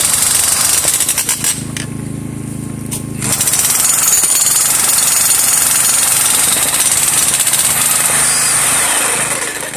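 Electric jackhammer breaking up rock. It eases off for about two seconds near the start, leaving a lower hum, then hammers at full force again and stops just before the end.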